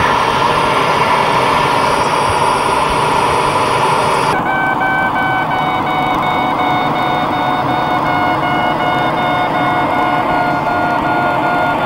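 Steady rushing airflow noise in a glider cockpit. About four seconds in the sound changes abruptly and a variometer starts beeping rapidly at a steady pitch over the airflow, the audio signal that the glider is climbing.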